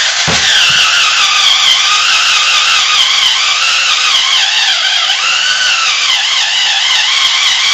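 Drill Master 18-volt cordless drill running under load, with a threaded rod in place of a bit grinding into rubber. The motor whine wavers and sags in pitch as the drill struggles.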